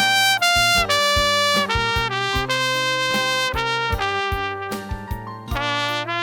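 Trumpet playing a slow solo melody in held notes, with a slight vibrato on a note near the end. A backing accompaniment holds low sustained notes underneath.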